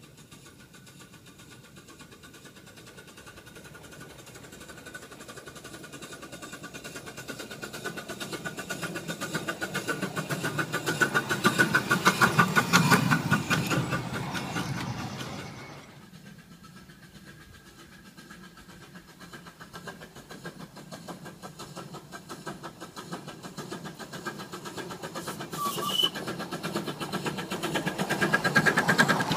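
Maxitrak R1 7¼-inch gauge live-steam tank locomotive chuffing along the track, its rapid exhaust beats growing louder as it approaches and passes close by. The sound drops away suddenly about halfway through, then builds again as the engine comes closer near the end.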